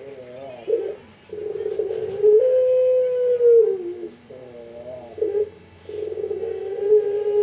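Puter pelung (a long-cooing domestic Barbary dove) cooing: short wavering notes alternating with two long, drawn-out coos, each held steady and then dropping in pitch at its end.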